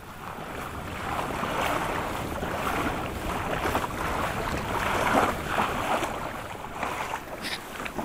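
Water splashing and rushing against a kayak's hull at sea, with wind buffeting the microphone.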